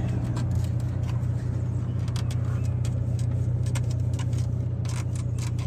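Small plastic clicks and taps as a relay is worked out of an RV's fuse and relay panel, with a cluster of clicks near the end, over a steady low hum.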